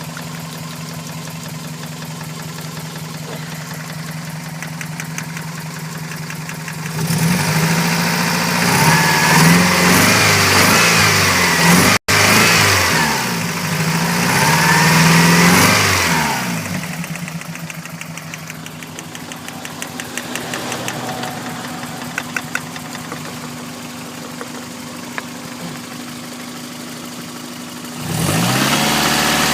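Toyota 5S-FE 2.2-litre four-cylinder engine idling with a fast rattle, revved up twice in the middle and again near the end before settling back to idle. The rattle is the fault being investigated.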